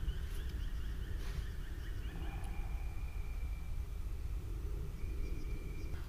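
Quiet forest ambience: a steady low rumble with faint, thin bird calls over it, including a held high note about two seconds in and again near the end.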